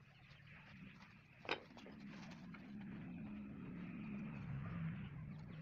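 A sharp knock about one and a half seconds in, then a faint, steady low engine hum that grows slightly louder.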